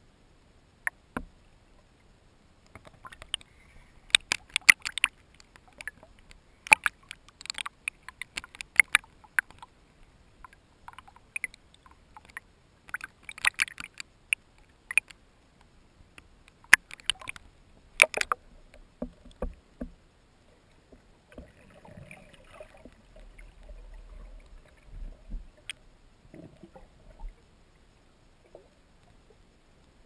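Water splashing and lapping against a camera housing at the waterline as a snorkeler swims at the surface, in irregular clusters of sharp splashes. After about twenty seconds this gives way to quieter, muffled sounds as the camera goes under.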